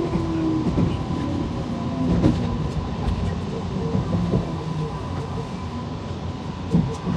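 JR Nara Line electric train running, heard from inside the front car: a steady rumble with a few knocks of the wheels on the track, the loudest about two seconds in and near the end.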